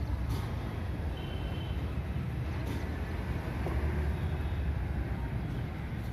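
A car's engine running, a steady low rumble.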